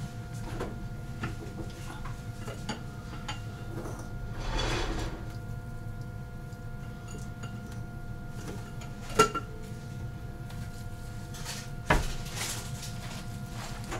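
Kitchen clatter of dishes and utensils: scattered light clinks and taps, with a brief soft noise about four seconds in. Two sharper knocks stand out, the loudest about nine seconds in and another about twelve seconds in.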